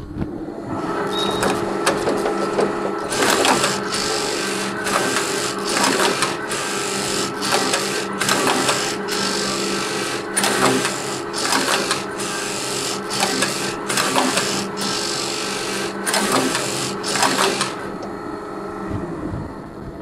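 Computerized flat knitting machine running: a steady motor hum, with rhythmic bursts of needle-and-carriage clatter about one and a half times a second starting about three seconds in. The clatter stops a couple of seconds before the end while the hum goes on.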